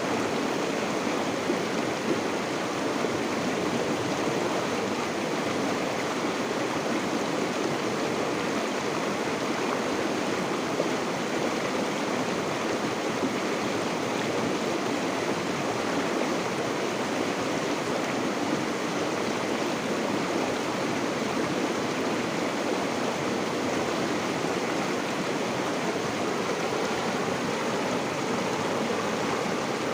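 River water flowing steadily over rocks, a continuous rushing and splashing with no breaks.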